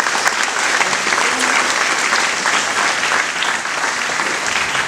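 Applause from a small gathering: many hands clapping together in a steady, dense patter, at about the loudness of the speech around it.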